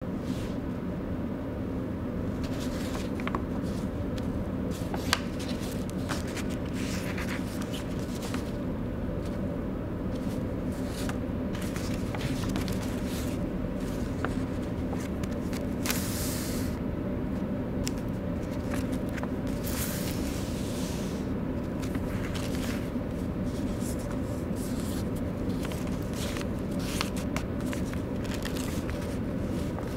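A sheet of handwritten paper being handled and folded by hand: intermittent rustling and crinkling, with a few sharp crackles as folds are pressed down, over a steady low hum.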